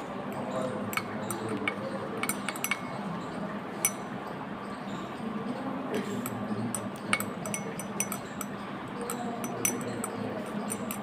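Glass stirring rod clinking lightly and irregularly against the inside of a small glass beaker while potassium permanganate crystals are stirred into water to dissolve them.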